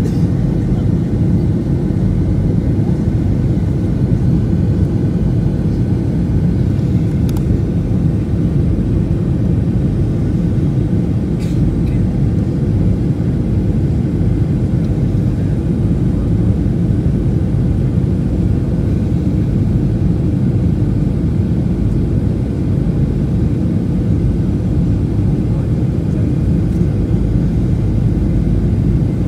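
Airliner cabin noise on approach: the jet engine and the airflow past the fuselage make a steady low rumble, heard from inside the cabin at a window beside the engine.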